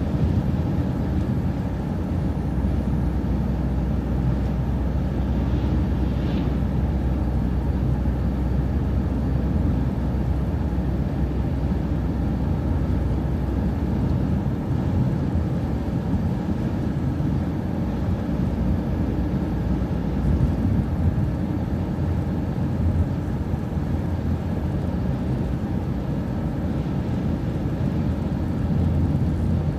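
City transit bus driving along: a steady engine drone with road noise, the level holding even throughout.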